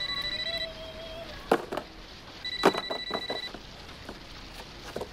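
An electronic telephone ringer trilling in rings about a second long: one ring ends about half a second in and a second one sounds in the middle. A few short knocks come between and during the rings, the loudest near the middle.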